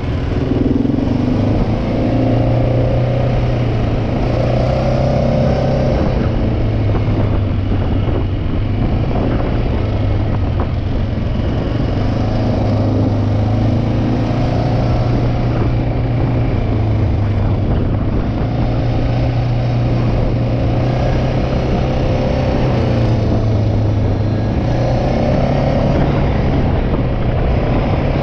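Quad (ATV) engine running steadily while riding, heard close up from on the machine, its note rising and falling a little with the throttle every few seconds.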